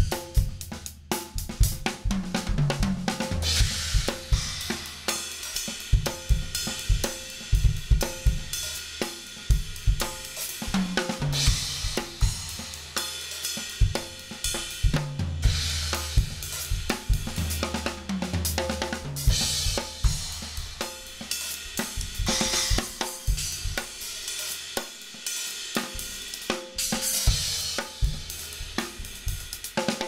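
A drum kit played fast with Saluda cymbals: quick snare and bass-drum strokes and hi-hat, with cymbal crashes ringing out again and again over them.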